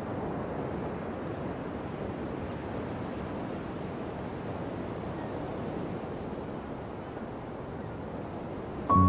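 Steady rush of ocean surf washing onto a sandy beach. Music with sustained notes comes in at the very end.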